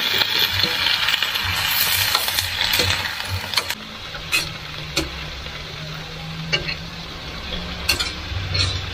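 Green beans and sliced vegetables sizzling in a hot wok as a metal spatula stirs them, with sharp clinks of the spatula against the pan. The sizzle is loud at first and drops to a lower level about four seconds in.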